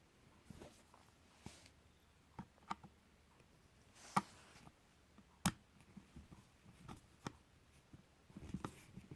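Scattered light clicks and knocks from handling the parts of a small speaker, with two sharper knocks about four and five and a half seconds in and a quick flurry of small knocks near the end.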